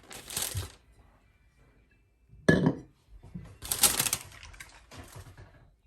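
Four short bursts of kitchenware clatter and handling noise, the loudest starting sharply about two and a half seconds in.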